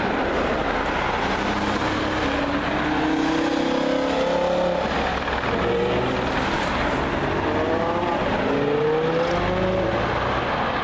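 Sports car engine accelerating past, its pitch rising twice, about three seconds in and again about eight seconds in, over a steady din of engine and road noise.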